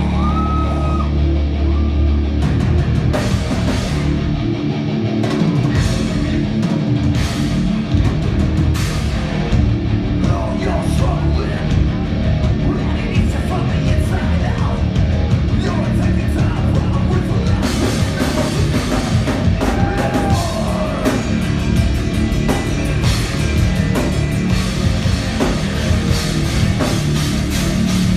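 Live band playing loud heavy rock: a held low guitar chord, then drums and distorted guitars come in hard about two seconds in, with some vocals over the top.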